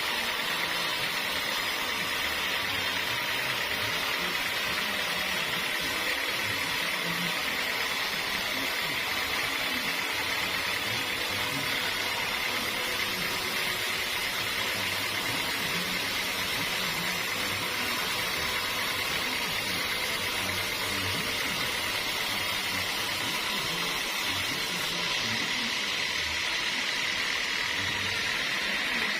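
Sawmill saw machinery running steadily: a constant, even hiss with a high hum, with no stops or changes.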